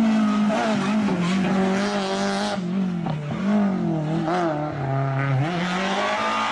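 Peugeot 106 rally car engine revving hard as the car slides through a hairpin, with tyre noise. The revs waver, dipping and picking up again a few times.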